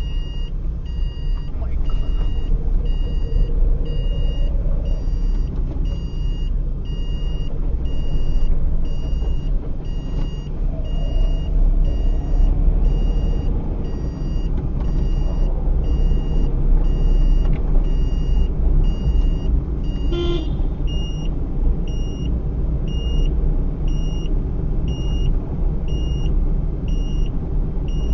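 Car being driven, a steady engine and road rumble heard from inside the cabin. Over it a high electronic beep repeats about once a second, and there is a single click about two-thirds of the way through.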